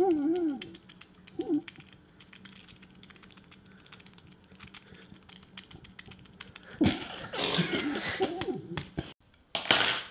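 Hands handling and pressing two lemons together close to the microphone. The rind gives a few short wavering squeaks, then a run of small clicks from fingers on the peel. A breathy, noisy stretch follows, and a short loud hiss comes near the end.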